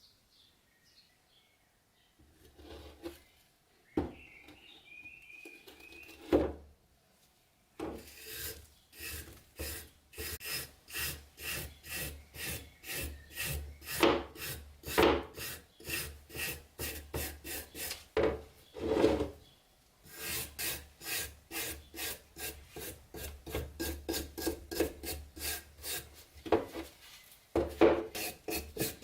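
Repeated hand scraping strokes on a rusty metal padlock, about two a second, with a short pause partway through. Before the strokes start there are a few scattered knocks.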